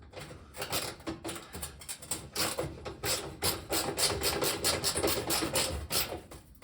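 Ratcheting driver clicking as a screw is turned back in, a run of quick clicks that settles into about four or five a second after the first couple of seconds.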